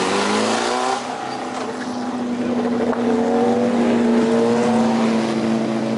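Race car engines at high revs: one car's engine rises in pitch as it pulls away, breaking off about a second in, then another race car's engine is heard coming up the road, its pitch slowly climbing and getting louder as it nears.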